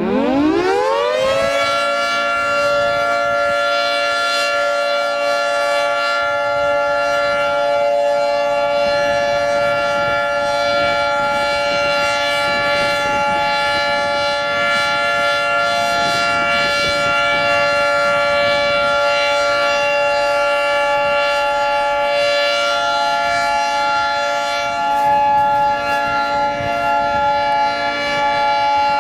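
Outdoor tornado warning siren winding up from a low pitch to a steady chord of several tones within about two seconds, then holding a steady tone: a routine monthly siren test.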